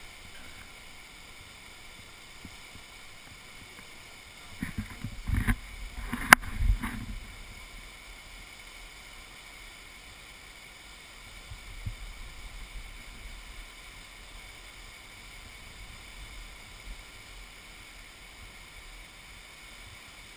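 Steady rushing of a muddy flash flood churning down the Virgin River channel. A brief cluster of low thumps and one sharp click comes about five to seven seconds in.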